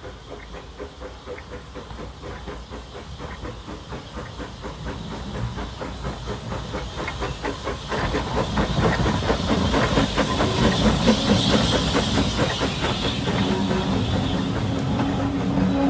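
Small saddle-tank steam locomotive working hard under load, its exhaust chuffing in quick, even beats that grow steadily louder as it approaches, getting much louder about halfway through as it comes close and passes. A hiss of steam rises over the beats as it goes by.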